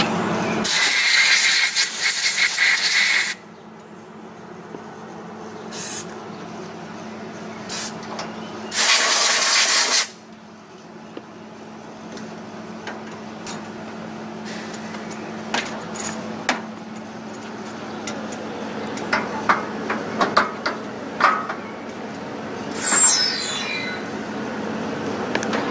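Gas hissing out hard in two bursts, the first about two and a half seconds long, the second about a second, while an LNG fuelling nozzle is being fitted to a truck's cryogenic fuel tank; then scattered metallic clicks and knocks of the nozzle coupling being locked onto the tank, over a steady low hum.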